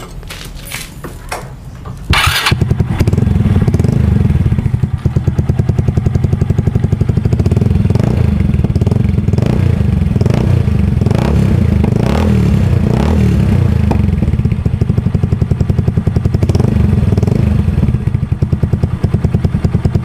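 Yamaha Mio Soulty scooter's single-cylinder four-stroke engine running loud through a Chicken Pipe V5 aftermarket exhaust with its silencer insert removed, so the pipe is open. A few clinks first, then the engine comes in suddenly about two seconds in and runs with a steady pulse, rising briefly a few times in the middle.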